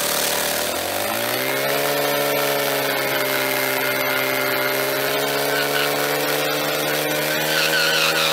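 Motorcycle doing a burnout: the engine revs up over the first second or so and is then held at high revs while the rear tyre spins on the tarmac. The tyre begins to squeal near the end.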